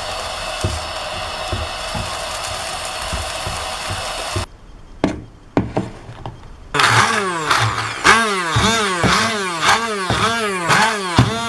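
An electric immersion blender is pulsed in short bursts, about twice a second, chopping chopped jujubes in a bowl; its motor whine rises and falls in pitch with each burst. This starts about 7 seconds in. Before it there is a steady hiss with light taps as a silicone spatula stirs jujube pieces in a frying pan.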